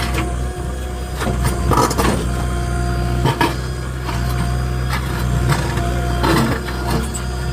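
JCB 3DX backhoe loader's diesel engine running steadily, with several sharp knocks and clanks from the working machine.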